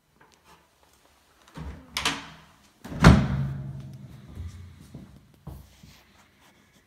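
A wooden floor hatch over the cellar stairs being let down and shut: a couple of knocks, then about three seconds in one loud wooden slam with a low, booming ring that fades over a second, followed by a few lighter knocks.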